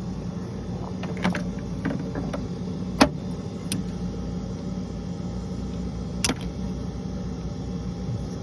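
Steady low mechanical hum with a scatter of sharp metallic clicks and clinks from hand tools being handled; the loudest click comes about three seconds in, with another about six seconds in.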